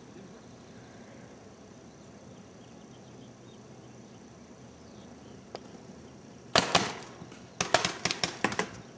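Faint steady outdoor background, then near the end paintball markers fire in quick strings of sharp pops.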